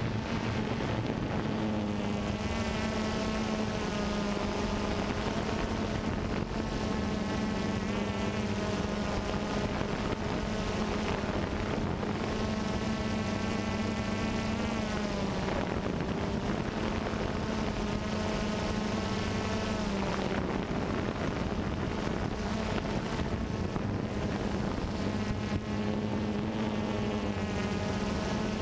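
Small quadcopter drone's motors and propellers giving a steady buzzing whine, its pitch wavering up and down as the drone manoeuvres.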